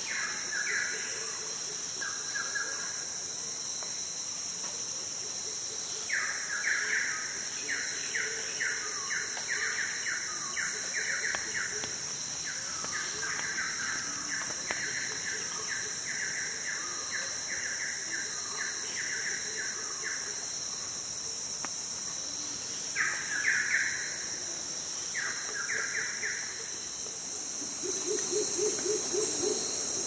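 Rainforest ambience: a steady, high-pitched drone of insects, with a bird calling in long runs of quick repeated notes, about two or three a second, from about six seconds in to about twenty, and in two short bursts later. Near the end a lower-pitched series of repeated notes comes in.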